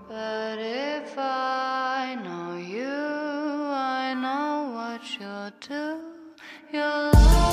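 Background music: a slow sung passage of long, gliding vocal notes with no beat, and a heavy beat coming back near the end.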